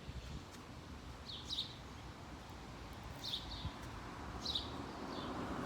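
A car approaching along the road, its tyre and engine noise swelling over the last few seconds, while a bird gives repeated short chirps.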